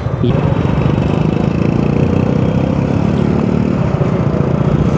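Motorcycle engine running steadily at low road speed, heard close up from the rider's own bike.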